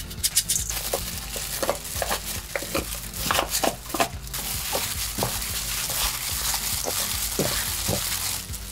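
Cooking sounds: a run of short clicks and scrapes like a utensil working food in a pan, then a steady hiss like food sizzling, which stops near the end.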